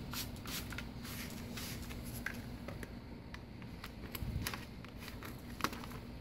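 A trigger spray bottle spritzing water in short hissing bursts during the first couple of seconds, then the rustle and crinkle of a large vinyl decal and its paper backing being handled and pressed onto a wet metal fender, with scattered small clicks.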